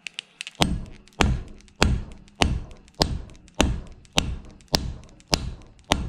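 Nylon hammer striking the wooden axe handle in the axe head's eye, about ten steady blows a little over half a second apart, each a short knock. The blows are driving the handle further into the head to seat it.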